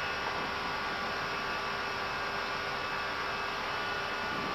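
Steady cockpit noise of an Airbus A320 in the climb: an even hiss of airflow and air conditioning with a faint electrical hum.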